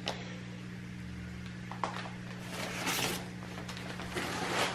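Newspaper packing rustling and crinkling as it is pulled out of a foam-lined shipping box, loudest a little past the middle, with a few light clicks. A steady low hum runs underneath.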